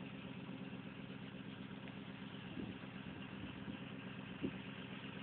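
Engine idling steadily, with two short knocks about two and a half and four and a half seconds in.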